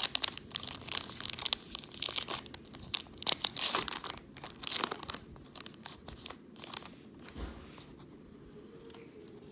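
Wrapper of a pack of baseball trading cards being torn open and crinkled: a dense run of crackles that dies down about seven seconds in.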